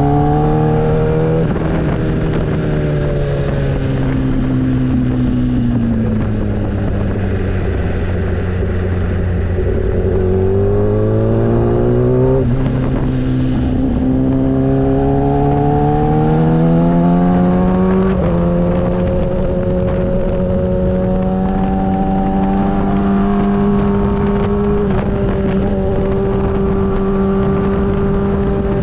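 Motorcycle engine running under way: its pitch climbs with the revs, drops sharply at gear changes about 12 and 18 seconds in, then holds a steady pitch for the last ten seconds.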